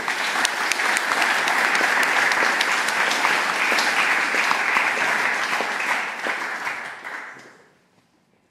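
Audience applauding, a dense patter of many hands clapping that dies away about seven seconds in.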